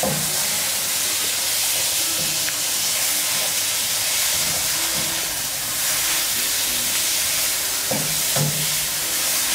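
Raw chicken pieces sizzling in hot oil with fried onion and garlic in a non-stick wok, stirred with a spatula: a steady frying hiss.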